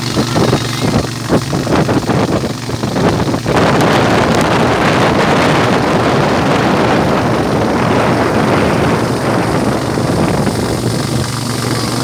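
A boat's motor runs steadily under way with wind buffeting the microphone. The wind noise turns louder and constant about three and a half seconds in.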